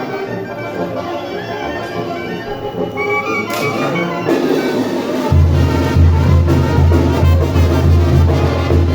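Music with brass instruments. About five seconds in a heavy, steady bass comes in and the music gets louder.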